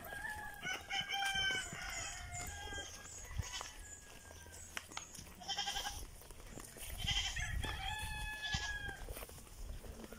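Farm animals calling, twice: two drawn-out pitched calls, each about two seconds long, one just after the start and one about seven seconds in.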